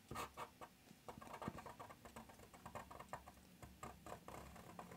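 Faint scratching and tapping of a pen on paper, a quick, irregular run of short inking strokes.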